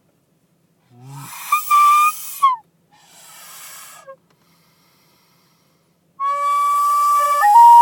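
A recorder blown with a breathy, hissing tone: a short wavering note that falls away at about two and a half seconds, a soft puff of breath, then from about six seconds a steady held note that steps down to a lower note near the end.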